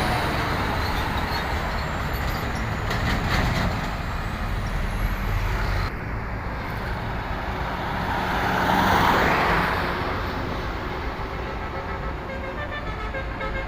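Heavy road traffic: truck engines running with tyre and road noise, and a vehicle passing close about nine seconds in.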